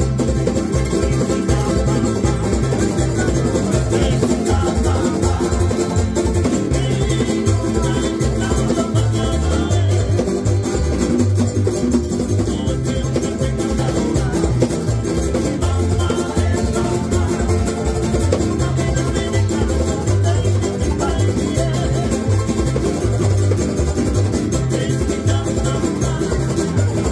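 Tahitian-style string band playing a lively strummed tune: ukuleles and an acoustic guitar strummed together with an electric guitar, over a steady rhythmic low end.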